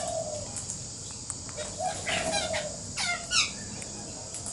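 Birds calling: two short runs of quick falling chirps, about two and three seconds in, each just after a brief buzzy note, with a few faint clicks between.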